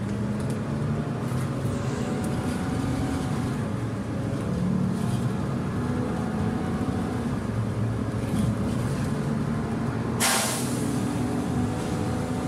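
City bus heard from inside the passenger cabin: the engine runs steadily over road rumble, its pitch rising and falling slowly. About ten seconds in comes a short, sharp hiss of released compressed air from the bus's air system.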